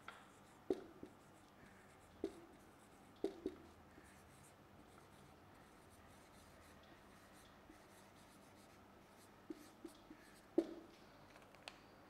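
Marker pen writing on a whiteboard: faint strokes of the tip against the board, with a few short sharp taps in the first few seconds and again near the end.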